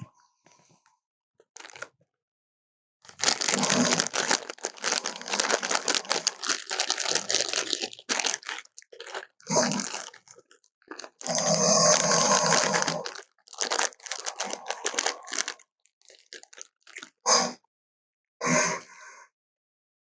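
Crunching, crackling sound effects, noisy and unpitched. They come in several bursts of a few seconds each after a short quiet start, and end in scattered crackles and two short bursts.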